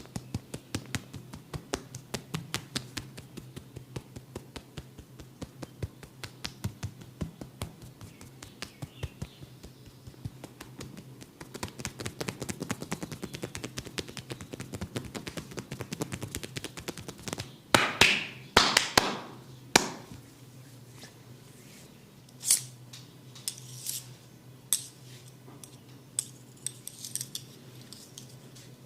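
Head and neck massage strokes: quick light taps at about four a second, growing denser and faster, then three or four louder scraping strokes a little past halfway, and a few scattered taps after.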